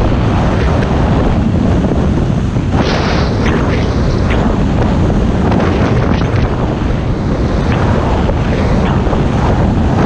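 Wind buffeting the microphone of a skier moving fast downhill, a loud, steady rumble. Over it come a few short hisses of skis turning through snow, the clearest about three and four seconds in.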